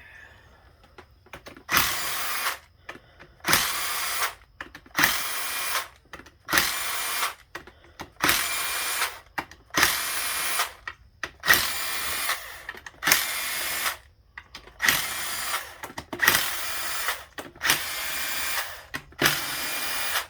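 Cordless power tool spinning bolts out of a transmission valve body: about a dozen short runs of about a second each, roughly one every second and a half, each starting with a sharp rise.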